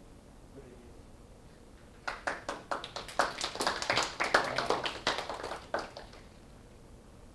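A small audience clapping: about four seconds of irregular hand claps, starting about two seconds in and dying away.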